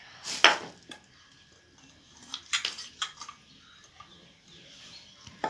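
A few short clinks and scrapes of a spoon against a mixing bowl as ginger-garlic paste is added to the chicken marinade.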